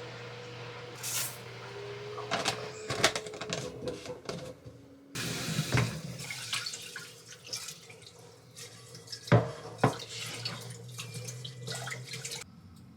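Kitchen tap running into a sink, with a few clinks of dishes, over a steady low appliance hum.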